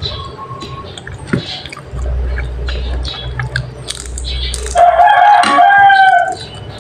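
A rooster crows once, loud, about five seconds in, lasting about a second and a half. Before it, small clicks of a spoon and fork on a plate and a low rumble.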